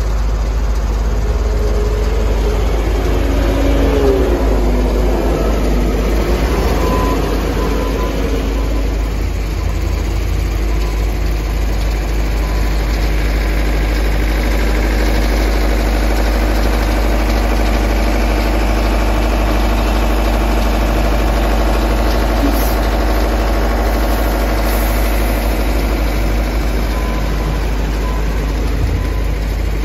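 Skid steer loader's diesel engine running steadily under work, with its pitch sliding up and down for a moment a few seconds in.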